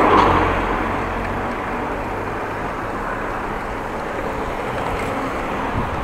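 Steady rush of wind and road noise on an action camera's microphone while cycling, loudest at the very start and easing within about a second.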